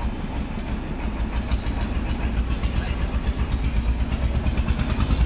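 Petrol being pumped from a fuel-dispenser nozzle into a car's tank: a steady rushing noise over a low hum, with no break in the flow.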